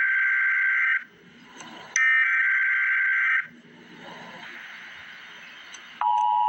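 Emergency Alert System SAME header: loud buzzing digital data bursts, one ending about a second in and a full one about two seconds in, with short pauses between. About six seconds in the steady two-tone EAS attention signal begins.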